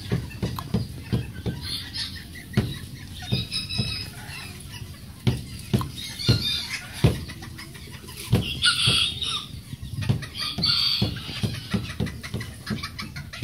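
Serama bantam hens clucking: a steady string of short, low clucks at an irregular pace, with a few higher, longer calls breaking in now and then.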